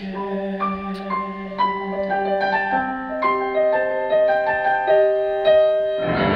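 Grand piano playing a melody of struck notes and a few chords over a low held note, with no voice. Applause begins to rise right at the end.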